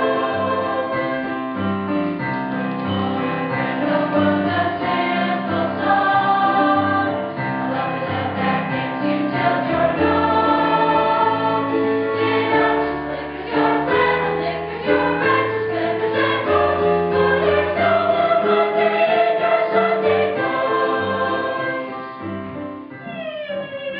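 Mixed chorus of a large musical-theatre cast singing a show tune together; near the end the voices slide down in pitch.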